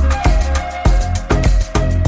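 Background music: electronic music with a heavy, driving bass beat.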